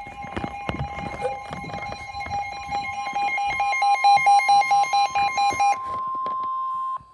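Weather alert radio sounding its warning alarm: a beeping alarm, pulsing several times a second, over a steady high tone near 1 kHz. The beeping stops about a second before the steady tone, which then cuts off abruptly.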